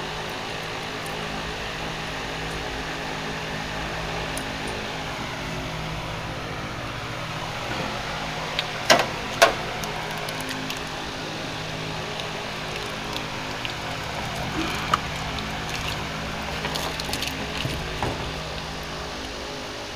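Steady mechanical hum, with two sharp clicks about nine seconds in and a few lighter ticks later on.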